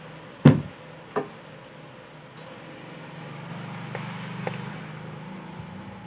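Two sharp knocks about two-thirds of a second apart, the first much louder, then a low hum that swells and fades with a faint tick in it.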